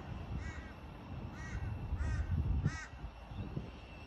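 A crow cawing: about five short, arched calls, spaced roughly half a second to a second apart.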